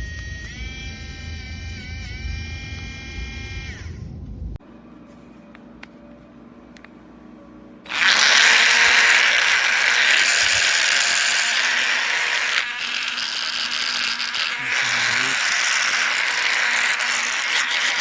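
Small cordless rotary tool motor whining and stepping up in pitch as its speed is raised, stopping about four seconds in. From about eight seconds in comes a loud, steady grinding rasp, the spinning bit working against material.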